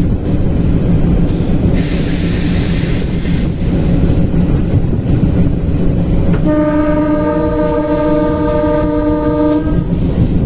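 Train running with a steady low rumble, with a brief hiss about two seconds in; its horn sounds one held blast of about three seconds in the second half.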